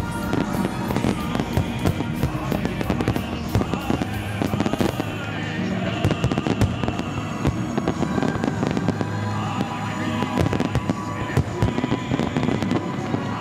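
Aerial fireworks display: many shells bursting in rapid, overlapping succession, with music playing underneath.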